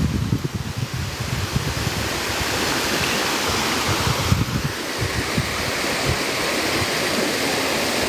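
Steady rush of a waterfall's falling water, with low buffeting on the microphone in the first second or so and again about four to five seconds in.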